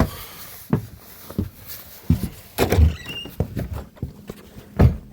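Footsteps going up a flight of stairs: a run of heavy thuds about every half to three-quarters of a second, with a brief squeak about three seconds in.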